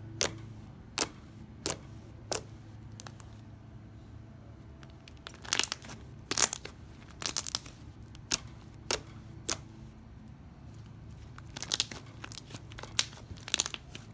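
Fluffy slime made with shaving cream being kneaded and squeezed by hand, giving sharp, irregular pops and crackles that come in clusters, over a faint steady hum.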